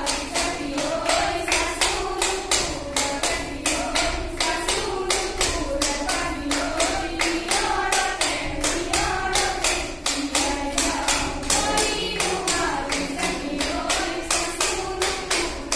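Women's voices singing a Jeng Bihu song together, over steady rhythmic clapping at about three claps a second.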